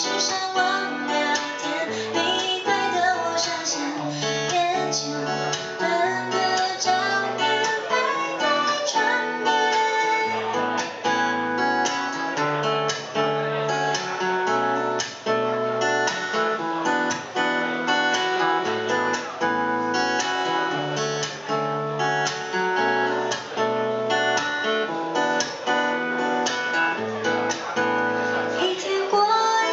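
Acoustic guitar strumming chords in a steady rhythm, with a woman's singing voice over it in the first few seconds.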